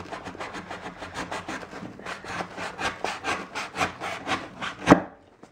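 Spyderco Manix 2 folding knife slitting the packing tape along a cardboard box's edge: quick rasping strokes of the blade, several a second, with one louder stroke near the end before the cutting stops.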